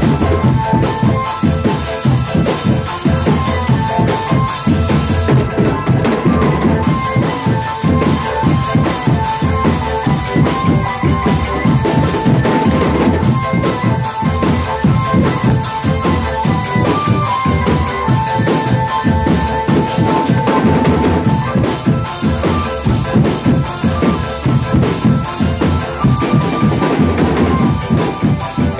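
Drumband music: fast, steady drumming with bass drum and snare, under a repeating melody line.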